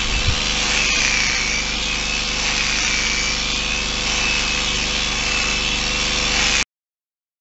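Electric sheep-shearing handpiece running with a steady whine as it clips through the dirty wool of a fly-struck sheep. The sound cuts off suddenly near the end.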